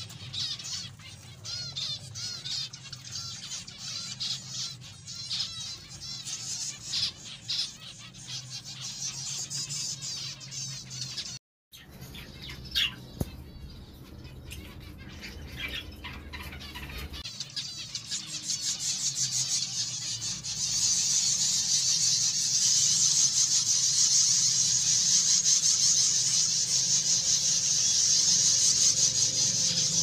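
Zebra finches and lovebirds chirping and calling in cages, with a brief dropout about a third of the way in. In the last third there is a dense, louder chorus of high chirps from many small birds.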